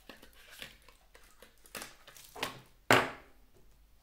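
Hands handling small plastic action-camera accessories and their box on a table: soft rustles and light clicks, with one sharp, loud knock about three seconds in.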